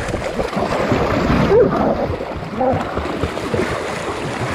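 Muddy water splashing and churning as catch dogs and a hog struggle in it, with two brief cries over the splashing.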